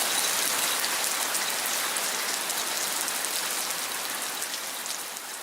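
Heavy rain falling: a dense, steady hiss full of fine drop ticks, fading out slowly.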